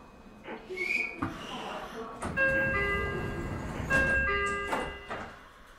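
A short high whistle-like tone, then an electronic chime of several steady tones sounding twice over a low rumble: the door-closing chime of a Meitetsu 9500-series train as it readies to depart.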